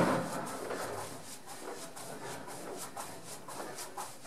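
Jumping jacks in socks on a thin floor mat: soft landing thuds and rustling of a plush mascot costume in a quick, regular rhythm, with a sharper thump at the very start.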